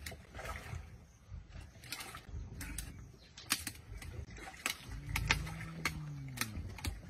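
Spotted hyenas feeding on a hippo carcass, with many sharp cracks and clicks of tearing and crunching. A low call rises and falls for about a second and a half, starting about five seconds in.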